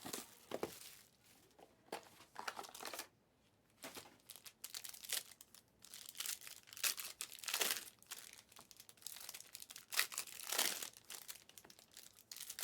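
Trading card pack wrappers crinkling and tearing in irregular bursts as packs are ripped open and handled.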